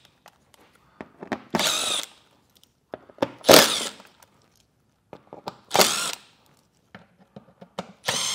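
Cordless power driver spinning out Torx screws from a plastic underbody shield in four short bursts, each about half a second, the motor's pitch wavering as it runs. Small clicks and handling noises come between the bursts.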